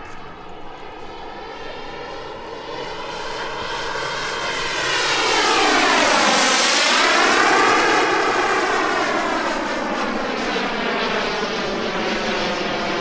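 EvoJet 220 turbine of a giant-scale RC Fiat G91 jet, its whooshing jet roar swelling as the model makes a low, fast pass about five to six seconds in. The sound sweeps down and back up as it goes by, then steadies somewhat quieter as the jet climbs away.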